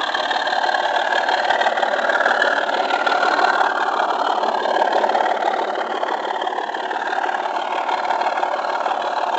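Model railway train running steadily along the track: a continuous whirr of the locomotive's motor and wheels on the rails, heard close up from the moving train, its pitch wavering slightly.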